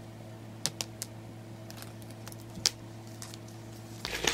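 Plastic shrink wrap being peeled off a boxed iPad Air: a few light, sharp crackles, then denser crinkling starting near the end, over a steady low hum.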